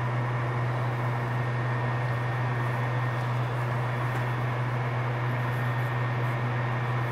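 A small electric blower fan running steadily: an even low hum with a hiss of moving air.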